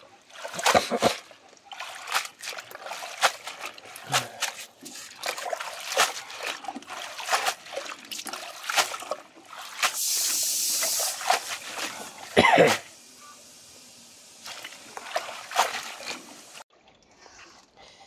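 Water splashing and trickling in irregular bursts as greens are washed by hand, with a steady pour of water for about a second midway and one louder sudden sound shortly after.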